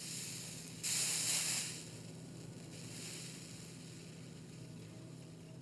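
Flux and molten solder sizzling as the hot soldering tip is touched to the fluxed wire splice: a hissing sizzle of about a second, starting about a second in, then dying to a faint hiss. A low steady hum runs underneath.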